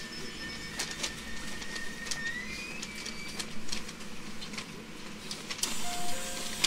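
JR Central 313 series electric train running, heard from inside the car: many sharp clicks over a steady rumble. A high whine rises in pitch a little over two seconds in and then holds, and two short mid-pitched tones sound near the end.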